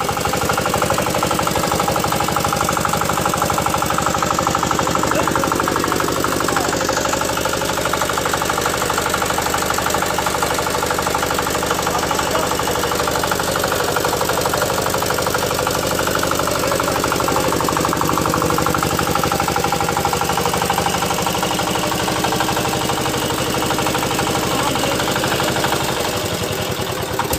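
Single-cylinder horizontal diesel engine (JD 180 type) running steadily at an even speed with its fast, regular firing beat. Its even running is taken as a sign the engine is in good condition, on its first start after standing about 15 days.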